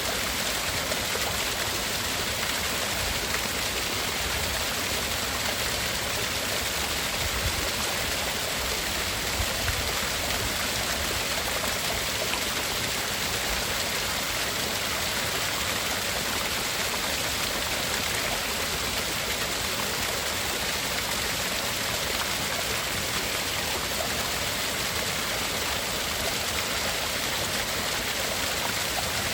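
Steady, unchanging rushing noise like running water, played as a tinnitus-masking sound, with two narrow slices of the highest treble missing.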